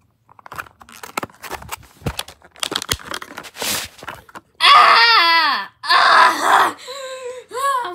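Hard plastic toys clicking and knocking together as they are moved about by hand. About halfway through comes a loud vocal shriek that falls in pitch, then a second loud cry and shorter high vocal sounds.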